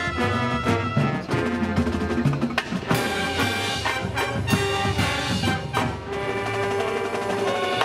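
High school marching band playing its field show: massed brass holding chords over drums and front-ensemble percussion striking throughout.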